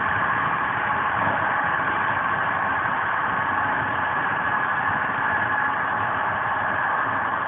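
Steady, even running noise of a CP Intercidades train travelling at high speed, heard from inside a Corail passenger coach.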